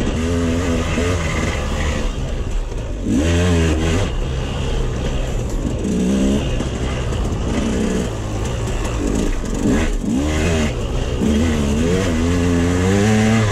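KTM 200 XC-W two-stroke single-cylinder dirt bike engine under hard throttle, its pitch climbing and dropping again and again as the rider opens and closes the throttle.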